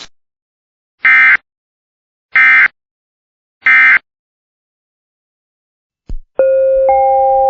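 Three short bursts of EAS SAME digital data tones, each about a third of a second long and about 1.3 s apart: the end-of-message code closing the National Weather Service severe thunderstorm warning. After a click about six seconds in, a rising electronic chime begins, its notes entering one after another and holding together as a chord.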